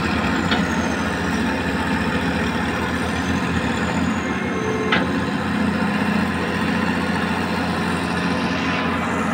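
Hitachi Zaxis 210 excavator's diesel engine running steadily while the machine digs, with one short knock about five seconds in.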